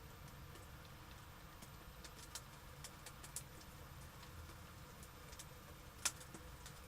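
Sparse, uneven ticks of raindrops hitting a hard surface, one sharper click about six seconds in, over a faint steady low rumble.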